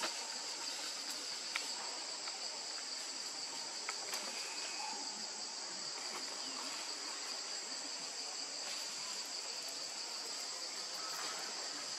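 A steady, high-pitched drone of insects calling in chorus, with a few faint clicks.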